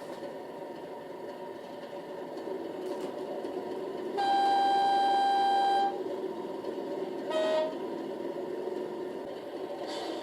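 Model diesel locomotive's DCC sound decoder playing an idling diesel engine, with a horn: one long high note about four seconds in, then a short, lower toot a second and a half later.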